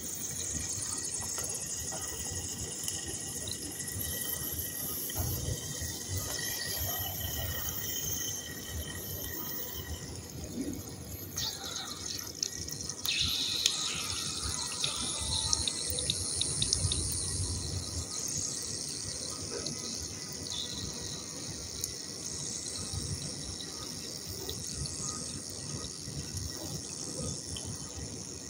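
Dry Nakumatt clay chunks soaking in water, fizzing and crackling with fine ticks as air bubbles escape from the clay, busier and louder for a few seconds near the middle.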